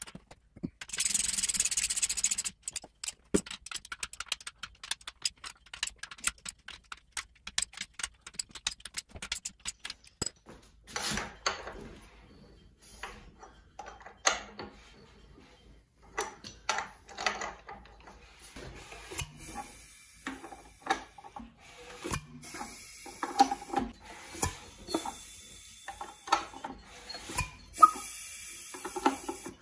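Hand tools working on a Mopar flathead six engine: a short scrape about a second in, then a ratchet wrench clicking rapidly for several seconds. After that come irregular knocks and clanks of tools and metal parts, as a long bar on the crankshaft pulley nut turns the engine over by hand.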